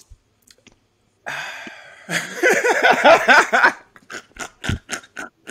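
Two men laughing hard: a loud burst of rapid ha-ha laughter begins about a second in, then breaks into short, quick gasping laughs near the end.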